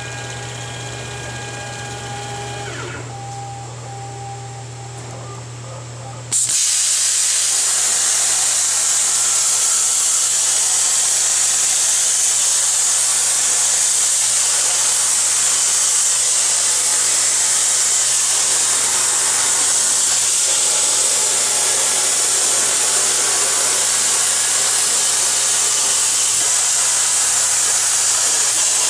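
CNC plasma cutter: a steady hum with faint whining tones, then about six seconds in the plasma torch fires and a loud, even hiss of the arc and its cutting air runs steadily on as the torch cuts the sheet metal.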